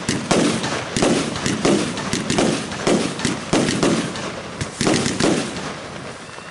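Lesli 'Atomic Sisters' compound fireworks cake firing shot after shot: a rapid series of sharp bangs, about two a second, each with a short echo, thinning out near the end.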